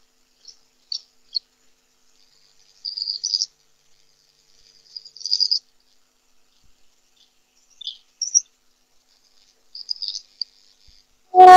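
Birds chirping: scattered high chirps and short trills with quiet gaps between them. Plucked-string music comes in right at the end.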